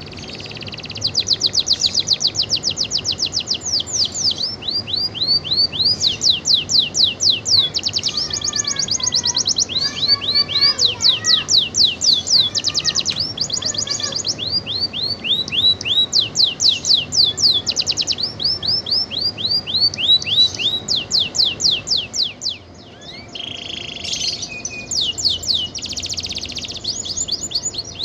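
Domestic canary singing continuously in full song: fast trills of repeated high, downward-sweeping notes, switching to a new phrase every second or two, with a brief lull a little past two-thirds through.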